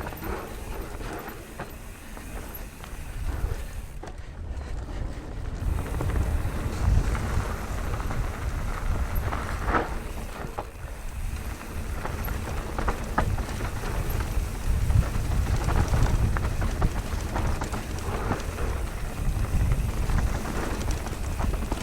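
Mountain bike, a Nukeproof Mega 290c, riding a rough descent: wind rumbling over the microphone, tyres running on loose ground and scattered knocks and rattles as the bike hits rocks, louder and rougher after the first few seconds.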